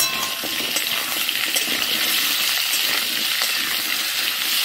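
Pumpkin and potato cubes sizzling in hot oil in a metal kadai (wok), with a steady frying hiss. A metal spatula stirs them and clinks against the pan now and then, most sharply right at the start.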